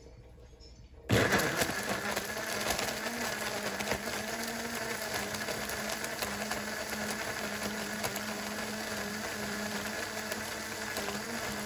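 Philips personal blender switched on about a second in and running steadily as it blends strawberries, milk and ice into a milkshake, with hard chunks clattering in the jar during the first few seconds.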